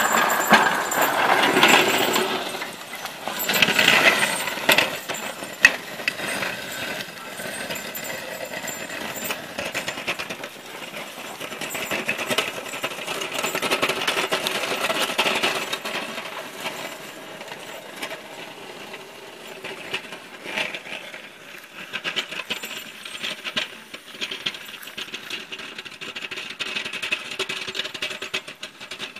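Team of Suffolk Punch draft horses pulling a horse-drawn snow plow: harness and plow rattling and clinking with many small clicks, loudest in the first few seconds.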